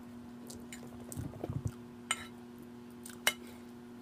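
Close-up eating sounds of a person chewing gravy-soaked pork chop: a run of wet chewing and mouth sounds about a second in, and several sharp clicks, the loudest near the end with a short ring like a clink on a plate.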